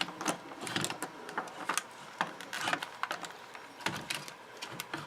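Hard plastic parts of a 1995 Thinkway Buzz Lightyear figure being handled as an arm is fitted into the torso: a string of small, irregular clicks and taps.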